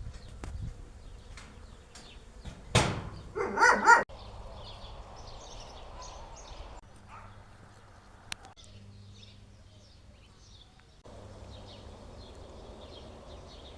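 A dog barks and yelps a few times about three seconds in, over faint high chirping and a low steady hum.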